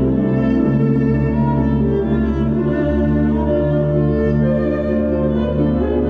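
Classical music for bowed strings: slow, sustained notes in a low cello-like line, with higher held string lines above.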